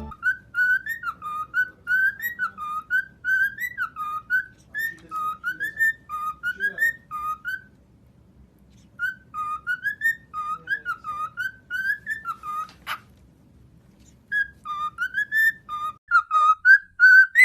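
Whistling in quick runs of short notes that swoop up and down, with a pause about halfway through and a single sharp click a little later.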